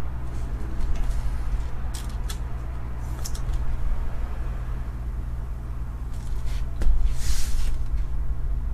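Panini Fortnite trading cards handled by hand: a few short rustles and slides of card stock, with a longer, louder swish about seven seconds in, over a steady low hum.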